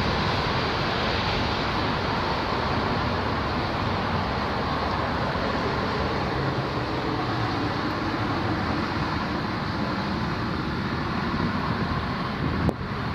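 Fokker 100's twin Rolls-Royce Tay turbofans as a steady jet noise while the landing airliner flies away down the runway toward touchdown. A sharp click near the end.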